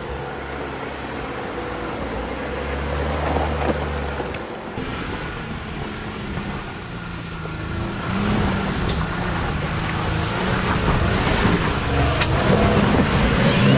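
A 4x4's engine revving hard and unevenly as it is driven up a slick clay hill, with a steady rough noise under it. There are a couple of sharp knocks in the second half.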